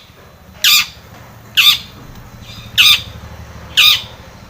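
Long-tailed shrike (cendet) giving four short, harsh calls, roughly a second apart.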